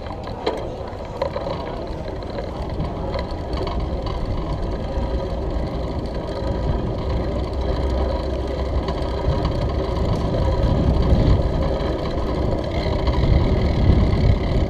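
Steady low rumble of a bicycle rolling over brick paving, mixed with wind on the camera microphone, growing louder in the second half as the ride speeds up. A couple of sharp knocks near the start.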